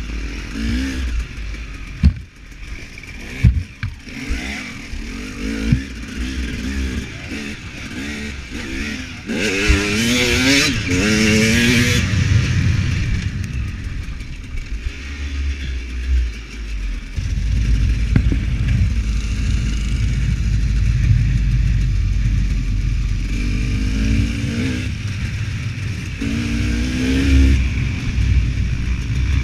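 Husaberg 300 two-stroke enduro motorcycle engine revving up and down as the bike is ridden hard over a rough dirt track, its pitch climbing in several bursts. Sharp knocks and clatter from the chassis over bumps come through early on, under a constant low rumble.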